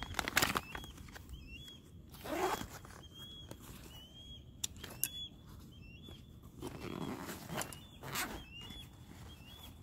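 Nylon pack fabric and a plastic water pouch rustling and swishing in bursts as gear is pushed into a backpack pocket, with small bird chirps repeating throughout.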